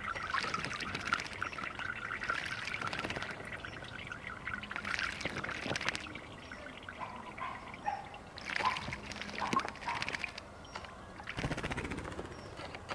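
A common starling bathing in a shallow garden bird bath, flapping its wings in the water and splashing in repeated bursts, heaviest in the first half. The splashing then thins out, with a few short bird calls heard between.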